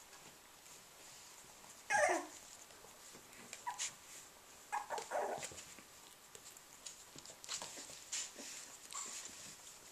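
Three-week-old Australian Labradoodle puppies whimpering and squealing. There is a loud cry falling in pitch about two seconds in, then a few shorter cries near four and five seconds.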